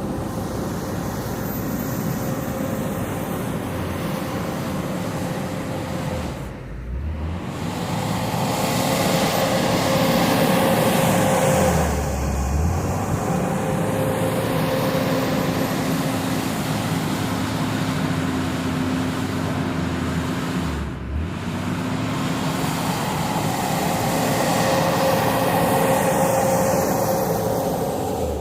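JCB 426ZX wheel loader running and working, its engine rising and easing under load with a steady hydraulic-transmission whine, and two short dips in the sound about a third of the way in and near three-quarters.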